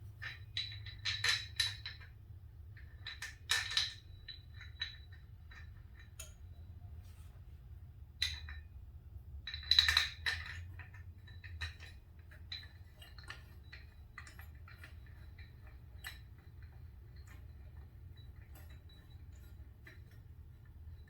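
Metal hand tools and fork parts clinking and clattering in irregular bursts, loudest about a second in, near four seconds and around ten seconds, as a 12 mm tool is fitted to the screw at the bottom of a motorcycle fork leg. A low steady hum runs underneath.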